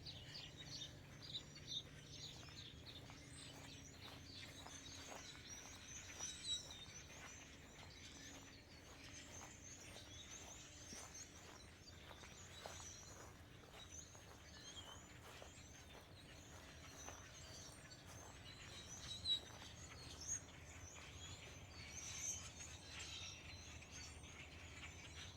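Many small birds chirping faintly, short high calls scattered throughout, over a faint steady low hum.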